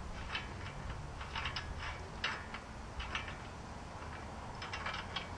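Irregular light metallic clicks and ticks of wheel-hub parts being handled and fitted at the centre of a front brake rotor, onto the spindle over the freshly greased wheel bearing.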